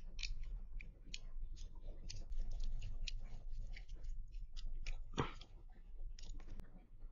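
Small hand screwdriver driving M3x8 screws through a 3D-printed part into a carbon-fibre drone frame, giving a run of small clicks and scrapes, one louder about five seconds in, over a steady low hum.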